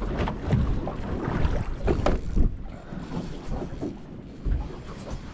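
Wind buffeting the microphone, with water and hull noise from a small boat in rough seas; louder in the first half, easing off about two and a half seconds in.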